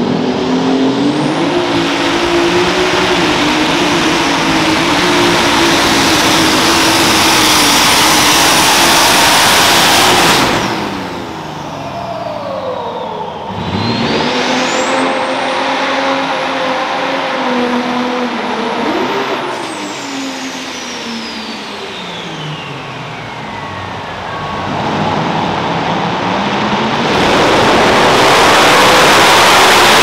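Competition pulling tractor engines running at full power, loud, with the engine note bending up and down. Midway the note drops, and a high whistle climbs, holds for several seconds and then falls away. Loud full-power engine noise returns near the end.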